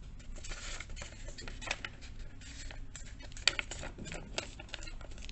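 Sheet of colour paper being handled and folded in half: rustling and crinkling, with one sharper crack about three and a half seconds in.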